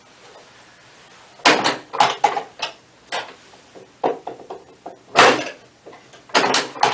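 A string of irregular sharp knocks and clatters, several of them short rattles, starting about a second and a half in.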